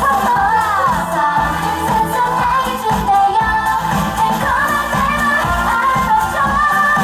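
K-pop song performed with singing over a steady beat.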